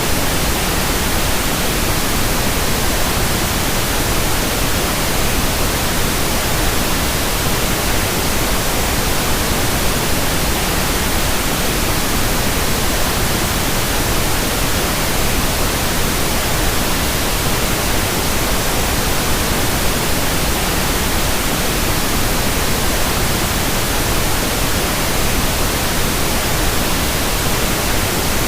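Tinnitus-masking noise: a steady, unchanging hiss spread evenly from low to high pitch, with no tones or rhythm.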